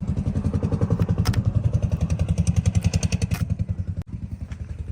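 Engine of heavy machinery running with a rapid, even chugging that starts abruptly, dropping out for an instant about four seconds in.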